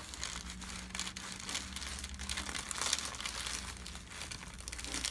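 Soft rustling and crinkling as hands massage and work the tight muscles of the neck and upper back on the treatment table.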